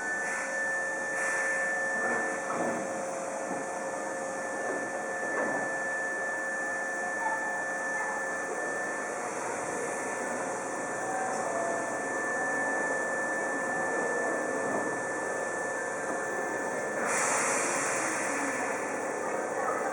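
An electric commuter train standing at the station, its onboard equipment humming with several steady tones. A short hiss comes about seventeen seconds in.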